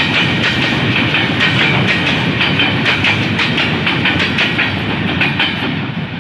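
Train passing at speed, its coach wheels clattering rapidly over rail joints amid a steady rumble and hiss, easing slightly near the end as it draws away.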